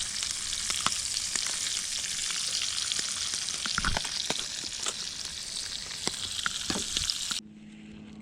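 Trout frying in hot oil in a pan: a steady sizzle with many small crackles and pops. About seven seconds in it cuts off abruptly to a low steady hum.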